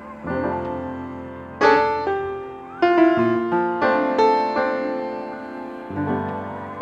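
Background music: piano chords struck and left to ring, changing every second or so.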